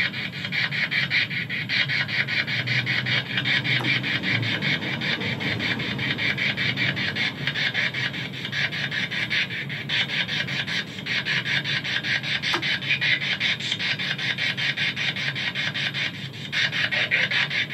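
Spirit box scanning through radio stations: a rapid, even chopping rasp of static that runs without a break.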